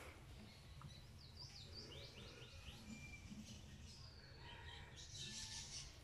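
Faint, short downward chirps from Morelet's crocodile hatchlings, calling for their mother. A cluster comes about one and a half to two and a half seconds in, with more near the end.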